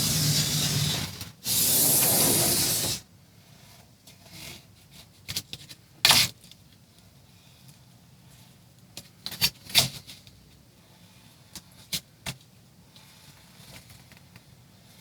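A pen drawn hard across a clear plastic patterning sheet, scratching in two long strokes over the first three seconds. Then scattered light taps and clicks as the pattern and tools are handled.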